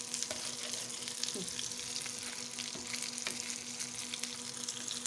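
Kofta made of ground meat and bulgur sizzling in a pan in the meat's own fat, a steady high hiss, with a few sharp clicks of a utensil turning them. A faint steady hum runs underneath.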